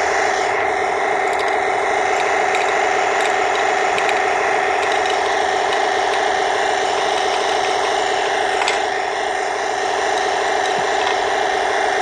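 Remote-control model tank's built-in sound unit playing a simulated tank engine idling through its small speaker: a steady, even drone. A few faint clicks come as pellets are dropped into the turret.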